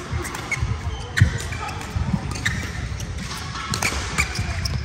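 Badminton doubles play: a series of sharp racket hits on the shuttlecock, with court shoes squeaking and feet thumping on the court floor.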